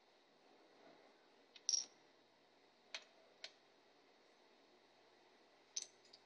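Small flat plastic puzzle pieces clicking as they are picked up off a tile floor and set into a plastic puzzle tray: a few separate sharp clicks, the loudest about two seconds in.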